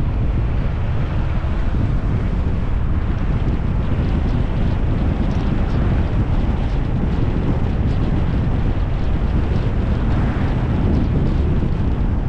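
Steady wind and road noise from a moving car, with wind buffeting the camera's microphone into a deep, constant rumble.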